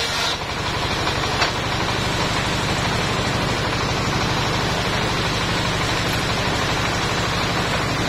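Engine of a trailer-mounted circular sawmill running steadily with the saw blade spinning free between cuts, with one short knock about a second and a half in.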